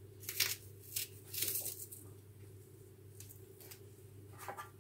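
Onion rings being laid by hand on a parchment-lined baking tray: a few short, soft rustles of the baking paper, the longest about a second and a half in. A faint steady low hum runs underneath.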